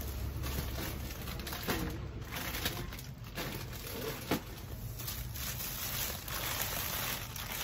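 Rustling and crinkling of things being handled and packed into a box, with scattered small knocks, one sharper knock a little past the middle.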